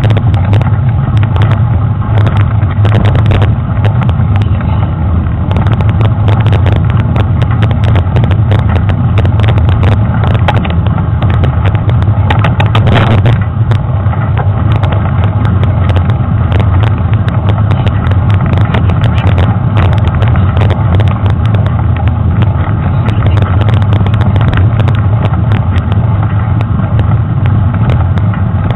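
Steady low rumble of wind and trail vibration picked up by a waterproof action camera mounted on mountain bike handlebars, with frequent knocks and rattles as the bike rolls over a rough dirt trail.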